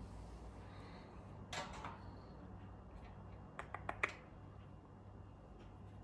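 A few short, sharp clicks about three and a half to four seconds in, over a low steady hum, with a soft rustle earlier on.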